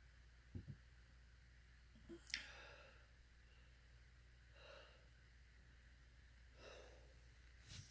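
Near silence, with a few faint breaths from a person lying still, two soft thumps about half a second in and a brief click a little after two seconds.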